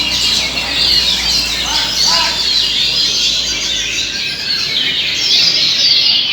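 Many caged songbirds singing at once: a dense, continuous chorus of overlapping chirps and trills, with a low hum underneath for the first few seconds.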